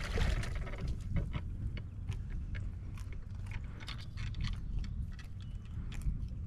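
Water splashing as a hooked sea robin is lifted out, dying away within the first half second, then irregular sharp clicks and crunchy ticks over a low wind rumble on the microphone.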